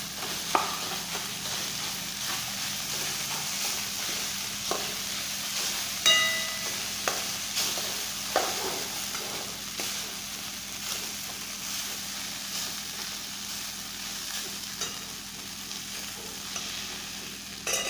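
Poha (flattened rice with onions and spices) sizzling in a steel pan while a metal spoon stirs it, scraping and knocking against the pan. One knock about six seconds in makes the pan ring briefly.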